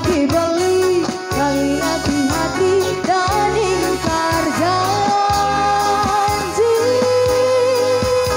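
Kecimol street band playing loud amplified dangdut-style music: a sliding lead melody over a steady beat of drums and bass, with long held notes in the second half.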